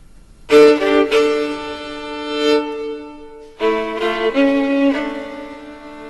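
Background music led by a violin: two bowed phrases of sustained, held notes, the first starting about half a second in and the second about three and a half seconds in.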